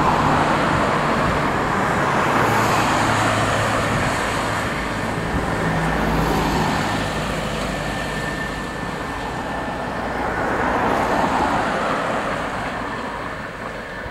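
Road traffic passing close by: cars driving past one after another, the noise swelling and fading several times.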